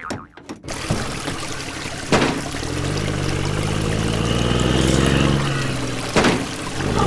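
Water pouring and trickling, with a low hum in the middle that slowly falls in pitch and a couple of short knocks.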